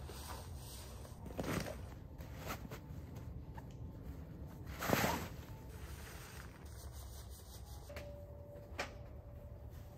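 Rustling and rubbing of camping gear being handled and packed into a backpack, with a few brief swishes, the loudest about halfway through.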